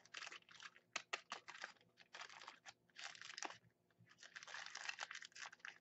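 Small clear plastic bag crinkling in irregular bursts, with a few light clicks, as ear tips are handled and pulled out of it.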